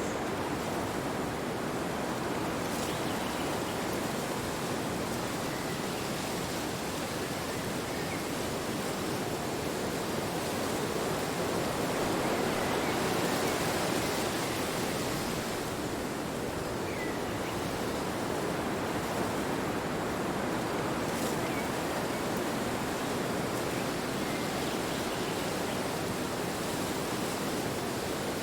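Wind blowing steadily as an even rushing noise, swelling somewhat stronger about halfway through.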